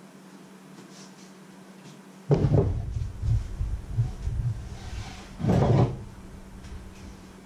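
Low thuds and knocks on a wooden kitchen worktop, starting suddenly about two seconds in, with a louder knock a little after five seconds as a ceramic mug is set down. A steady low hum runs underneath.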